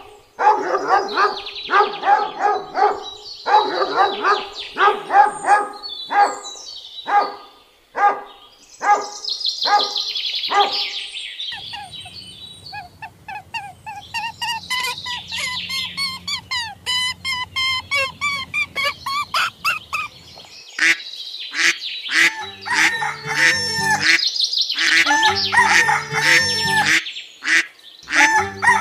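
Poultry calls: quick repeated honking for the first several seconds, higher chirping calls in the middle, and long drawn-out calls like a rooster crowing in the last third.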